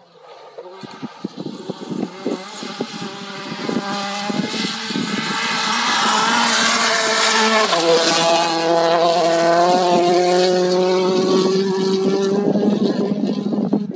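A rally car's engine at full throttle on a gravel stage, growing louder as the car approaches, then passing close by and running on at high revs. The engine note drops in pitch about halfway through, over a steady hiss of tyres on gravel.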